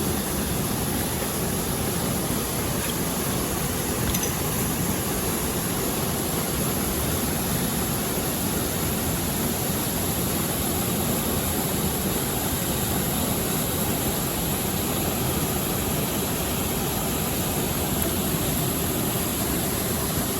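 Steady rush of a mountain stream's flowing water, an even unbroken noise.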